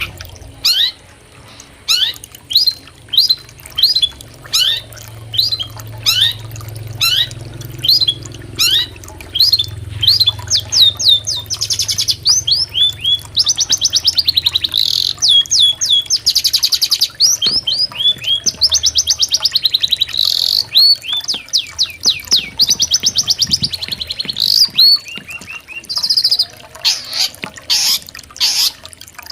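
Long-tailed shrike (cendet) singing loudly. Sharp, sweeping chirps come about twice a second, and from about a third of the way in they break into fast, rattling trills mixed with further chirps. A low, steady rush of flowing river water lies beneath for roughly the first half.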